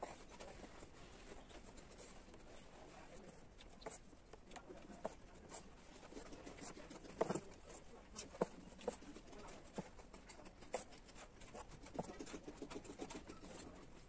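Quiet taps and scratchy rustles of hand embroidery: needle and thread drawn through cloth stretched tight in a plastic hoop, and fingers handling the hoop. A few sharper taps stand out in the middle.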